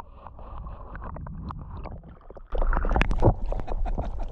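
Muffled water sound heard from underwater at first. About two and a half seconds in it turns suddenly louder: splashing and dripping water from a canoe paddle working beside the canoe, over a low wind rumble.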